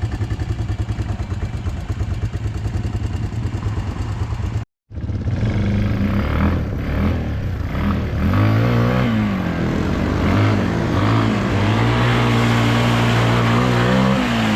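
ATV engine running steadily at a constant speed; after a brief cut about four and a half seconds in, it revs up and down over and over as the quad is ridden.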